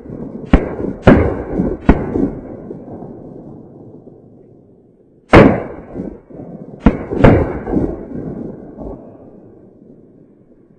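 Shotgun shots from several pheasant hunters, each trailing a long rolling echo: three reports in the first two seconds, then a louder, close shot about five seconds in, followed by two more about a second and a half later.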